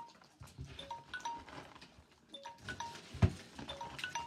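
Light background music of short, separate notes at several pitches, with a few soft knocks and one sharp knock about three seconds in.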